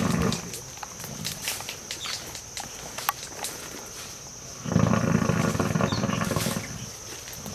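Asian elephant tusker giving a deep rumbling growl that fades out just after the start and comes back about five seconds in for nearly two seconds, with scattered crackles of brush between.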